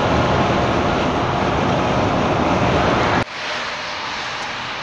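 Road and wind noise in the cab of a moving truck at autobahn speed. About three seconds in it cuts abruptly to a quieter, steady cab rumble in slow traffic.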